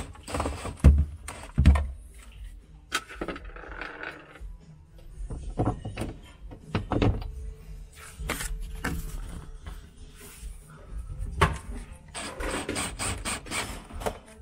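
DeWalt Atomic 20V cordless drill/driver driving screws into a refrigerator's white interior panel in short runs, about three seconds in and again near the end, amid knocks and clicks of the tool and panel being handled.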